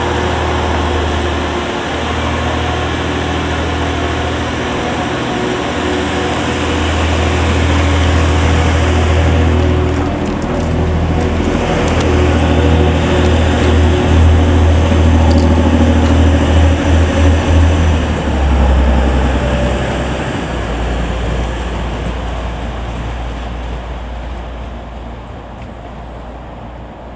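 TransPennine Express Class 185 diesel multiple unit pulling away from the platform, its underfloor diesel engines giving a deep, steady drone. The drone grows louder as the unit passes beneath the footbridge, drops in pitch a little after the middle, then fades as the train draws away.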